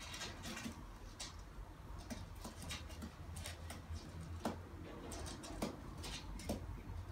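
A pigeon working a nesting twig in its beak on a window ledge: irregular light rustling and clicking, with a few sharper clicks in the second half.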